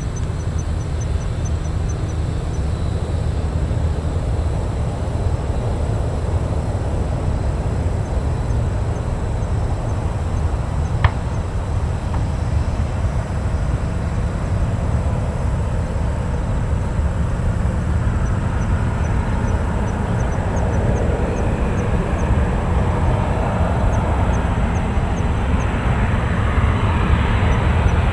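Boeing 737-800 airliner on final approach, its CFM56 turbofan engines a steady low rumble that grows louder over the last ten seconds as the plane closes in on the runway. A single sharp click near the middle.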